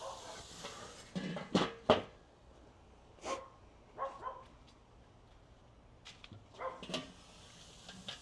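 A dog barking: a series of short barks spaced a second or more apart, the loudest about two seconds in.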